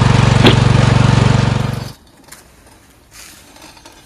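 Riding lawn mower engine running loudly and steadily, then stopping about two seconds in; after that only faint outdoor background.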